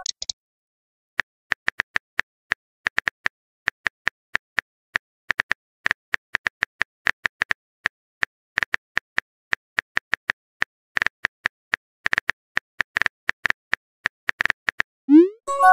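Smartphone keyboard typing sound effect: a long run of quick, irregular key clicks. Near the end comes a short message chime, a rising swoop followed by a few bright tones.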